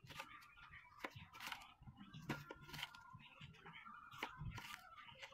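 Kitchen knife slicing a red onion on a bamboo cutting board: a dozen or so crisp, irregularly spaced cuts, each blade stroke crunching through the onion layers and tapping the board.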